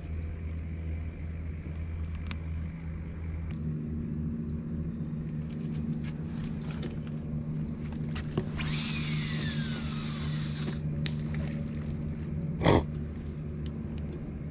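A steady low motor drone whose pitch shifts about three and a half seconds in. A hiss lasts about two seconds around the middle, and there is one sharp knock near the end.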